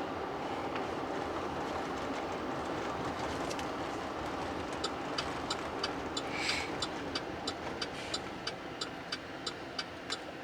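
Steady road and engine noise inside a moving Chevy Tahoe's cabin. About five seconds in, the turn-signal indicator starts clicking evenly, about three clicks a second.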